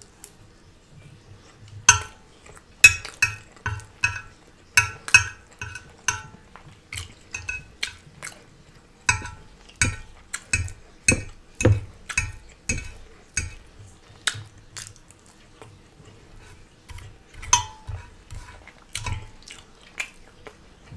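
A fork clinking and scraping against a serving dish as food is picked up: many short ringing clicks at irregular intervals, heard close up.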